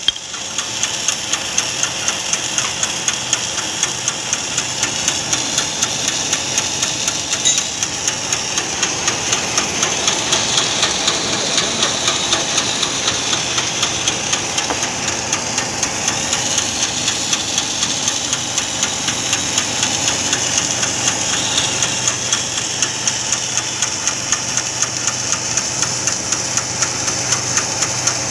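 Snack food extruder machine running steadily: a continuous mechanical whine with a fast, even ticking.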